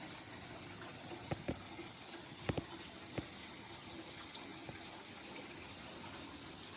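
Koi pond waterfall running, a steady pour and splash of water. A few short sharp knocks cut through it about one to three seconds in.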